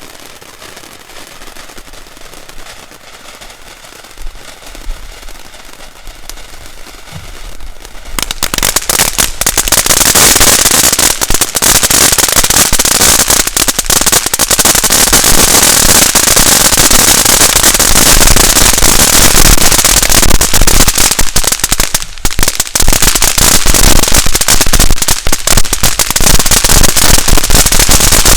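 Ground firework fountain crackling: a quieter spray hiss at first, then about eight seconds in a loud, dense crackle takes over and keeps going, briefly dropping out a little past twenty seconds.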